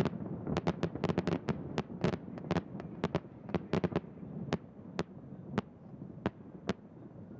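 Large fireworks display: many sharp cracks and bangs over a continuous low rumble. The cracks come thick and fast at first, then thin out to scattered bangs in the second half as the rumble dies down.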